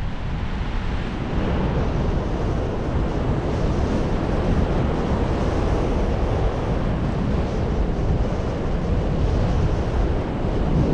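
Wind buffeting the microphone: a steady, rough rushing noise, heaviest in the low end, with no distinct events.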